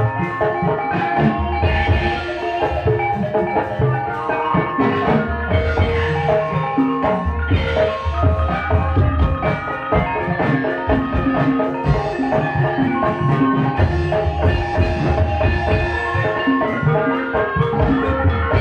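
Live Javanese gamelan music for an ebeg dance: mallet-struck metallophones ringing out a busy, repeating melody over a steady rhythm of low drum strokes, played loud through a sound system.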